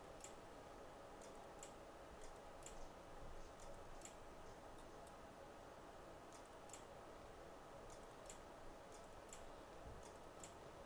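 Faint, irregular small clicks and ticks from a phone logic board and small tools being handled in a board holder, over a low steady hum.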